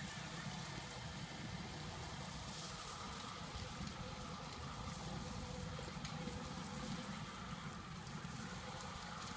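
Steady outdoor background noise: a low rumble with an even hiss over it and no distinct event. The electric trials bike is too far off to stand out.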